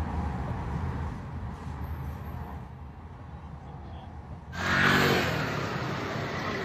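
A low, steady rumbling noise, then about four and a half seconds in a sudden switch to street traffic noise, with a motor scooter engine revving briefly at the cut.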